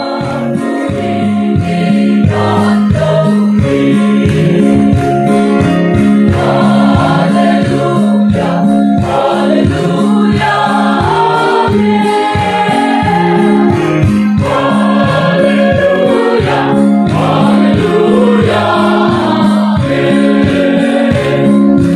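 A mixed choir of men and women sings a gospel song in parts, loud and sustained, over a steady beat.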